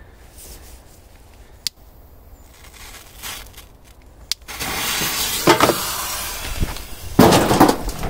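A large firecracker exploding inside a washing machine: a loud rushing noise starts about four and a half seconds in, then a sharp, very loud bang comes about seven seconds in. The blast tears the drum out of the machine.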